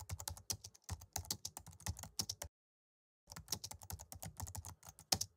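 Typing on a computer keyboard: a quick, uneven run of keystroke clicks that stops for under a second about halfway through, then starts again.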